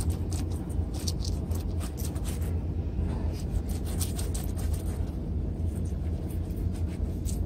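Knife scraping and cutting at a mullet on a plastic cutting board: a run of short, irregular scratchy strokes, several a second, over a steady low rumble.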